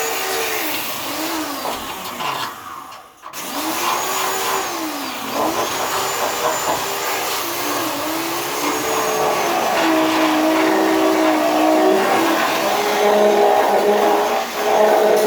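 Hand-held grinder running on car body steel, its motor pitch dipping each time it is pressed into the metal and recovering as the load comes off. It cuts out briefly about three seconds in, then runs on at a steadier, higher pitch near the end.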